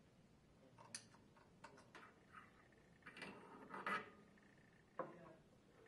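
Near silence with a few faint clicks and a brief faint scraping about three to four seconds in: small pump parts and a hand tool being handled on a wooden workbench.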